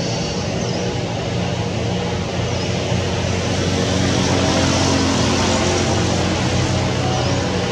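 Steady drone of a distant engine, growing louder around the middle and easing off again, over a constant hiss.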